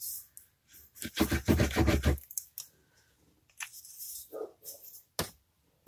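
Scratchy rubbing of a glue applicator pressed and drawn across cardstock for about a second, followed by a few light taps and clicks of paper being handled.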